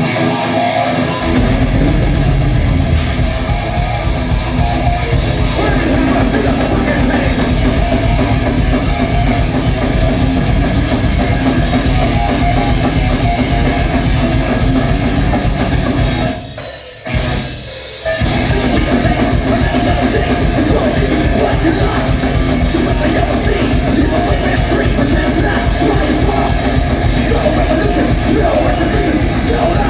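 Live heavy rock band playing loud, with drum kit and electric guitar, stopping abruptly for about a second and a half roughly two-thirds of the way through before the full band crashes back in.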